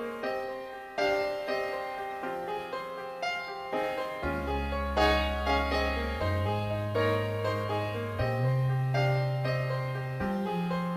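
Instrumental break of a karaoke backing track: piano or electric keyboard playing a sequence of chords, joined by sustained bass notes about four seconds in.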